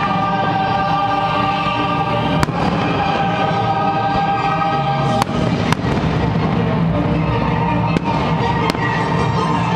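Fireworks bursting in a display, with about five sharp bangs spread through, over steady music with long held notes.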